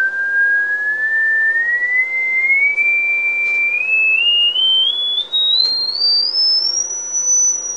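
A single pure test tone from a small whizzer-cone speaker, turned up in pitch from about one and a half to six kilohertz: it rises gradually, then in small steps, and holds at six kilohertz near the end.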